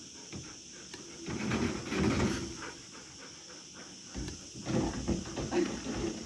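Several excited dogs vocalizing in two spells, starting about a second in and again after about four seconds.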